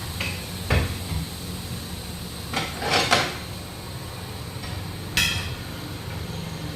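Metal clanking and knocking: about half a dozen irregular strikes of steel tools against a steel wheel rim during tyre removal, with the loudest near the start, in the middle and about five seconds in.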